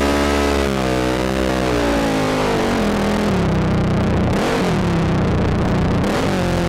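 ATV engine revving, its pitch rising and falling with the throttle, then dropping about two to three seconds in and running lower under a rushing noise.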